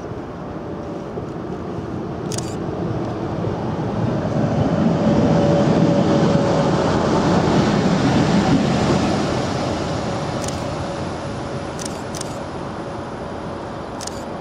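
British Rail Class 60 diesel-electric locomotive running light through the station: its engine and wheels on the rails swell as it passes close by and then fade as it draws away, with a steady whine over the rumble. A few brief clicks are heard in the second half.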